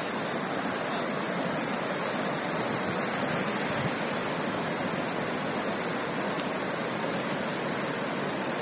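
Fast-flowing floodwater from an overflowing creek rushing steadily.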